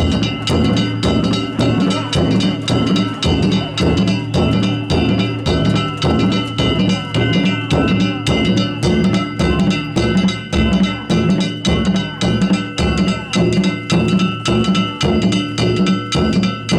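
Danjiri festival float music: a taiko drum and ringing hand gongs (kane) beaten in a steady, driving rhythm.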